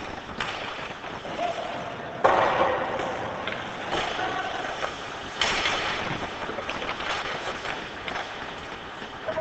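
Ice hockey play in an indoor rink: skates scraping the ice and sticks and puck clacking, with two sharp loud hits about two and five seconds in that ring on in the arena.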